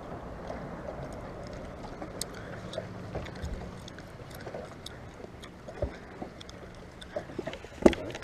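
Fishing boat on the water: a steady low hum that fades about seven seconds in, with scattered light clicks and a sharp knock near the end.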